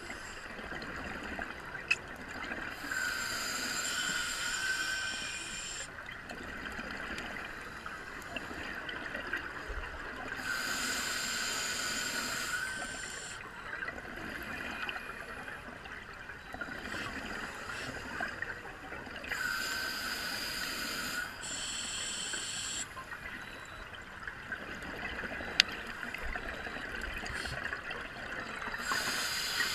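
Scuba regulator breathing underwater: slow hissing inhales, each followed by a bubbling rush of exhaust bubbles, coming back about every eight seconds. Two single sharp clicks, one about two seconds in and one near the end.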